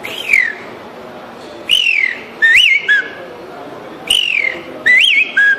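A man whistling an imitation of the curiango (common pauraque) call. It opens with one falling whistle, then twice gives a falling whistle followed by a quick rising-and-falling note.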